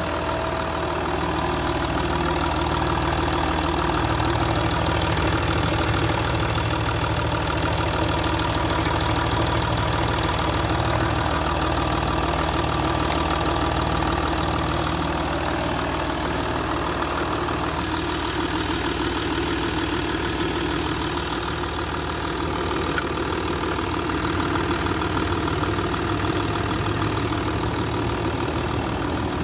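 Land Rover Discovery 3's 2.7-litre V6 turbo-diesel (276DT TDV6) idling steadily.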